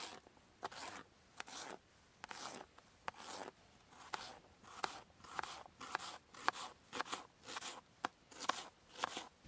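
A knife slicing through red pepper and red onion onto a plastic chopping board: a steady run of short crisp cuts, a little over two a second.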